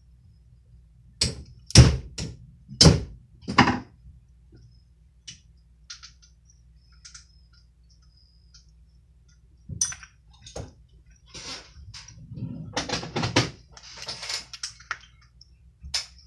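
Screwdriver and small pick clicking, tapping and scraping against the spool of a Shimano Talica fishing reel as a spool bearing is worked on. A few sharp knocks come a couple of seconds in, then scattered light ticks, then a denser run of tapping and scraping near the end.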